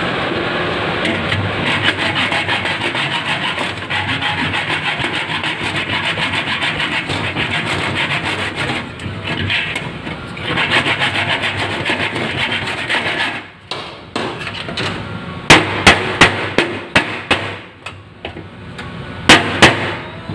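Metal rasping in quick, even strokes on a seized, rusted bolt in an old stove's sheet-metal cabinet as it is notched and worked to be cut off. About two-thirds of the way in the rasping stops, and a run of sharp metal knocks follows.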